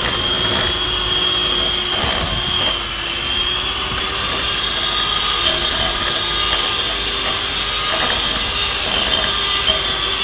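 Electric hand mixer running steadily, its beaters creaming butter and icing sugar in a glass bowl, with a few light clicks.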